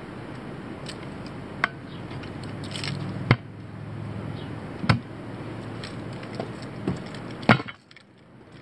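Tire irons knocking against a steel wheel rim while a tire bead is pried over it by hand: four sharp metallic knocks a second or two apart, the last three loudest, over a low steady background noise.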